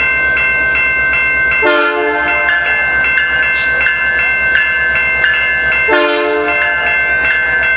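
Level-crossing warning bell ringing steadily in a regular two-tone pattern over the low throb of a diesel locomotive's engine. The locomotive horn sounds two short blasts, about two seconds in and again about four seconds later.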